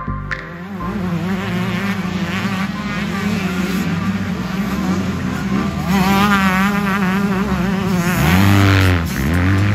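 85cc two-stroke motocross bike engines being revved hard. Their pitch rises and falls repeatedly as the throttle opens and shuts through the gears, and the sound is loudest near the end.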